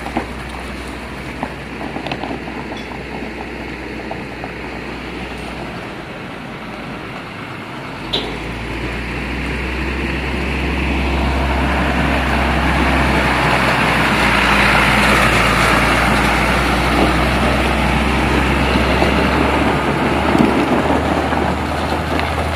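Diesel engine and tyre noise of a Hino 500-series tractor truck towing a flatbed trailer as it approaches and drives past close by, over a steady low engine hum. The sound grows from about eight seconds in and is loudest midway.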